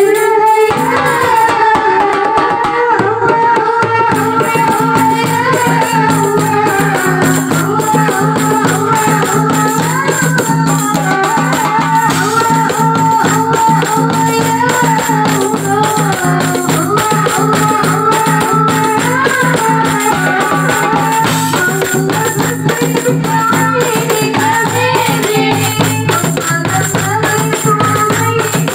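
A marawis ensemble playing: hand drums and jingling tambourines keep a steady, busy beat while a female voice sings a melody in long, held, ornamented phrases.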